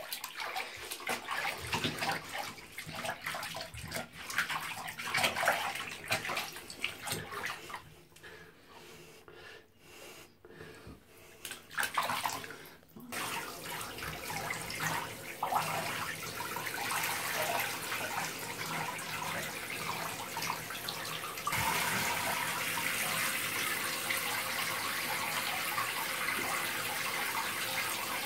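Bathwater splashing irregularly as hands wash a cat in a bathtub. About halfway through, a handheld shower head starts spraying steadily, and it grows louder about three-quarters of the way in.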